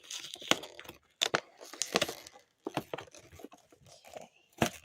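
Cardboard toy box and plastic packaging being handled and opened: irregular crinkling, scraping and tearing with scattered sharp clicks, the sharpest near the end.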